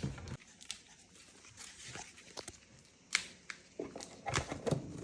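Scattered light clicks and taps on the plastic parts of a pet water fountain as they are fitted together, with a quiet gap in the middle and a run of quick clicks near the end.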